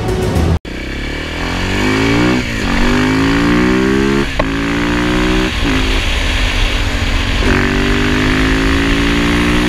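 KTM 690 SMC R single-cylinder engine accelerating hard through the gears. The pitch climbs in each gear and drops back at each of four upshifts.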